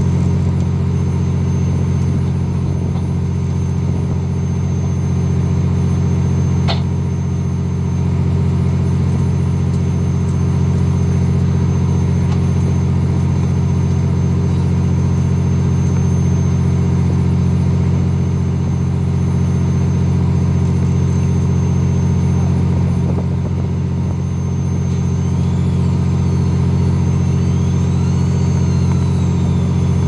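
A fishing boat's engine running steadily at a constant pitch, a deep even hum with a faint high whine above it.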